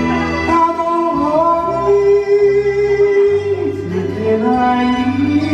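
A woman singing an enka ballad into a microphone over a karaoke backing track, holding one long note about two seconds in, then sliding up to the next.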